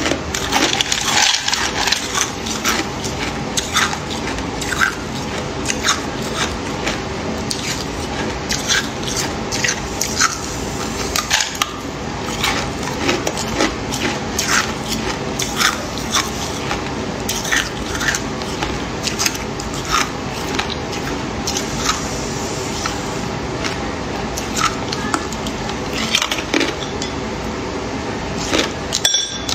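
Hard clear ice cubes being bitten and chewed: irregular sharp cracks and crunches, a few each second, over a steady hiss.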